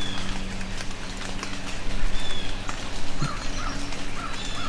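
Birds calling faintly in the distance, short thin chirps and a few small arched notes, over a low, steady rumble.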